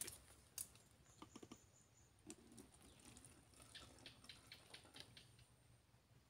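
Near silence with faint, scattered light ticks and rustles, a quicker run of ticks near the middle.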